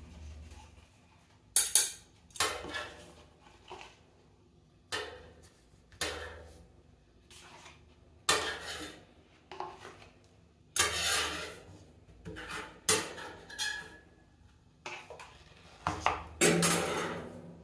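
Steel spatulas clinking and scraping on a steel ice-cream cold plate as rolled ice cream is scooped up, in about fifteen separate strokes, a few of them longer scrapes.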